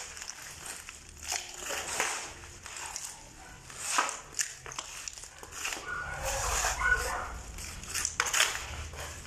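Shovels scraping across a concrete floor as they scoop and turn a heap of wet cement, soil and trash mix, in irregular strokes.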